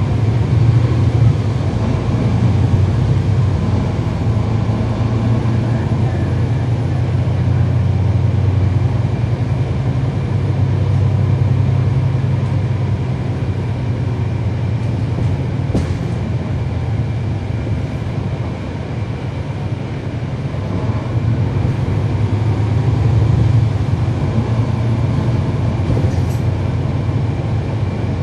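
Cummins ISL9 inline-six turbodiesel of a 2012 NABI 40-foot transit bus, heard from on board with the bus under way, running with a steady deep drone. The engine eases off about two-thirds of the way through, then pulls harder again. Two sharp clicks come partway through.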